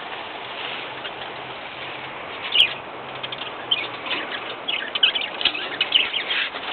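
A flock of pet parakeets and other small parrots chirping and chattering in an aviary, the calls thin at first and growing busier in the second half. A single sharp click about two and a half seconds in.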